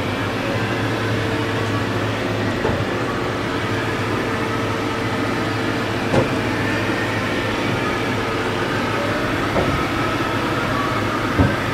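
Haas VF-3 vertical machining center jogging its X axis: a steady servo and ballscrew hum with a constant tone, with a low part that drops away about three seconds in. A few light clicks along the way.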